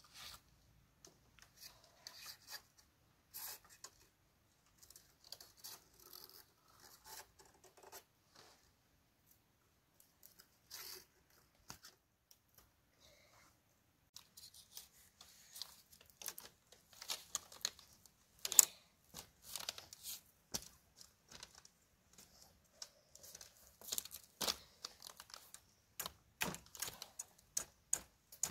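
Hand work on bamboo: irregular light clicks, snaps and short tearing scrapes, sparse at first and busier from about halfway, with one sharper snap near the middle.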